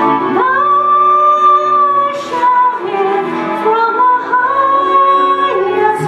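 A woman singing solo into a microphone over instrumental accompaniment. She comes in about half a second in on a long held note, moves through a short run of notes, and holds another long note until just before the end.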